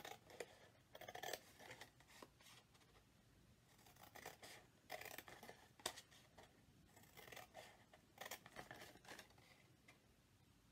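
Scissors quietly snipping through cardstock, cutting up the score lines to make flaps, in several short runs of snips.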